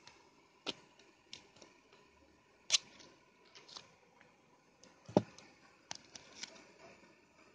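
Scattered clicks and knocks from hands handling a metal fishing-weight mould half and small swivels on a table top. The loudest, a heavier knock, comes about two-thirds of the way in.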